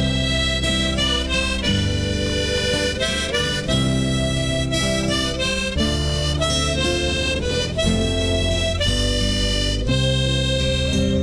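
Background music: a harmonica plays a melody over a low chord accompaniment in the instrumental break of a country-style song.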